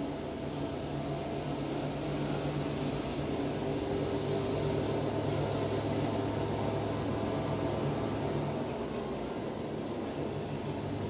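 Steady machine hum with a constant low drone and a thin high whine, the whine dropping in pitch and settling a little lower about eight seconds in.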